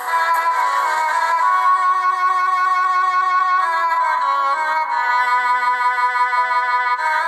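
Song music whose melody moves in long held notes, changing pitch every second or so.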